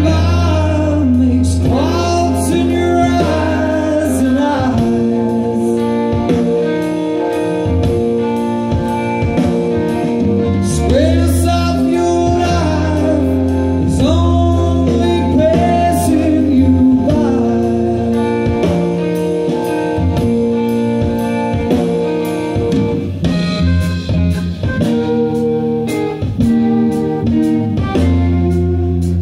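A band playing a song: electric guitar with bending notes over a steady bass line and drums keeping an even beat.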